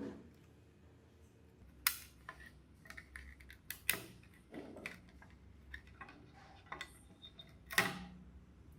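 Small clicks and taps of hands working a device's screen bracket: its feet are twisted upright and the bracket is pushed out of its mounting. Scattered light ticks, with sharper clicks about two, four and eight seconds in.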